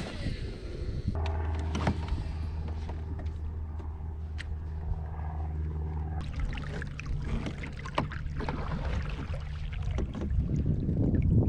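Fishing kayak under way, with a steady low motor hum that starts about a second in and fades about halfway through, and scattered small knocks from gear on the hull. Low rumbling grows louder near the end.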